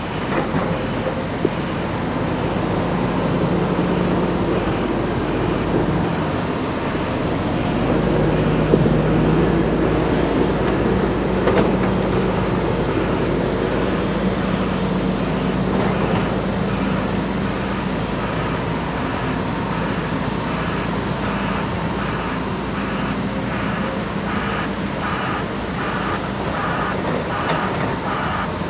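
Heavy diesel machinery running: the engines of a Volvo EC380D crawler excavator and dump trucks, their pitch rising and falling with load. A few sharp knocks are heard, and from about halfway a regular pulsing sound joins in.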